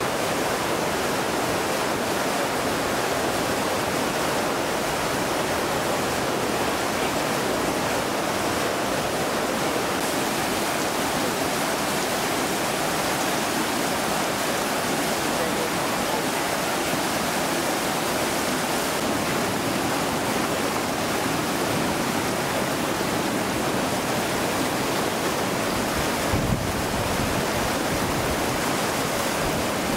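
Steady rushing and splashing of water thrown off the turning scoop wheel of a steam pumping station as it lifts water. Near the end it turns to the deeper rush of churning outflow water.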